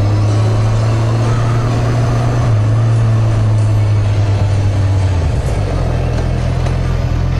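Honda CB650R's inline-four engine running steadily while the bike is ridden; its low engine note shifts down about five seconds in.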